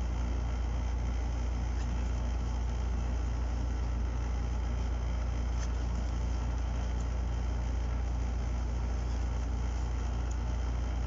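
Steady low-pitched hum with an even hiss over it, unchanging throughout, with a few faint light ticks.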